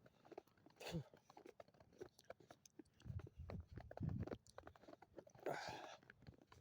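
Footsteps crunching through deep snow: irregular, faint crunches, with a few heavier low thuds in the middle.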